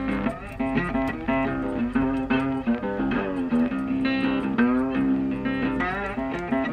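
Background music: plucked guitar with sliding notes over a steady bass line.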